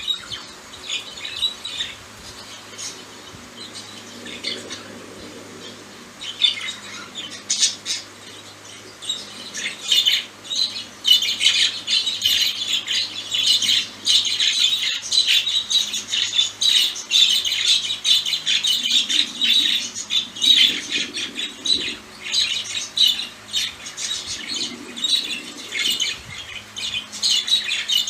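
Pet budgerigars chattering and squawking in a rapid run of short, high calls. The chatter thickens and grows louder about ten seconds in and keeps going almost without a break.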